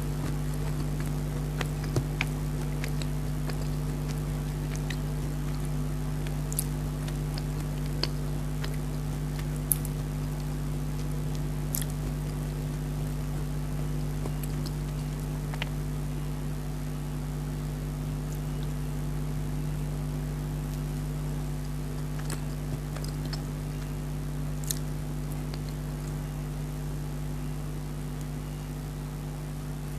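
Close-miked eating sounds: scattered soft clicks and smacks of chewing cake and of a utensil, a few seconds apart, over a steady low hum that is the loudest sound throughout.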